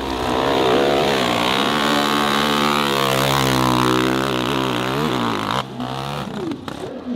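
Dirt bike engine revving hard under throttle as it climbs a steep hill, its pitch wavering down and back up. The engine sound drops away sharply about five and a half seconds in.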